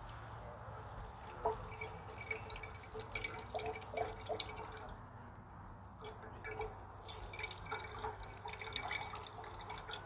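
Crowberry juice dripping and trickling from a hand-squeezed stainless steel potato-ricer-style press into a steel cup below: irregular drops with short pitched plinks.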